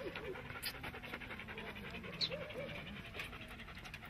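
Greyhound-type sighthounds panting quickly and evenly, with a short high-pitched squeak about two seconds in.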